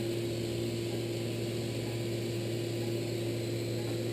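Steady low electrical hum over a constant hiss, unchanging throughout.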